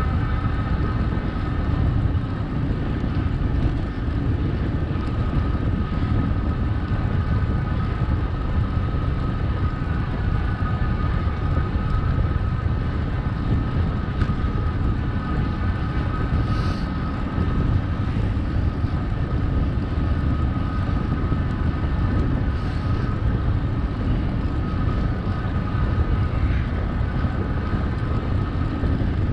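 Wind buffeting the microphone during a bicycle ride, with a thin steady whine above it and two brief high chirps a few seconds apart past the middle.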